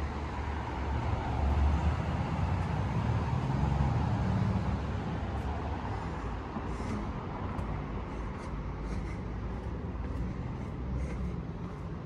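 City street traffic with a low engine rumble: a vehicle passes, louder from about one to five seconds in, then fading back to a steady traffic hum. Faint light ticks in the second half.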